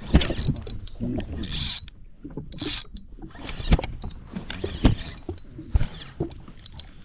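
Fishing reel being wound in after a bite, with irregular clicks and knocks and two short hissing bursts.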